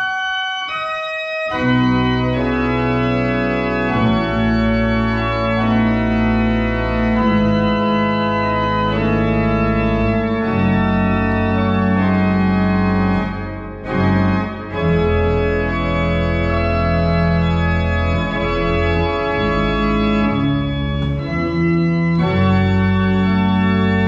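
Organ music: sustained chords over deep held bass notes, with short breaks between phrases about a second in and again around fourteen seconds in.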